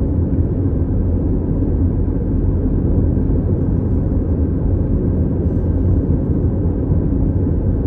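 Steady low rumble of a car driving along a highway: engine and tyre road noise, even throughout.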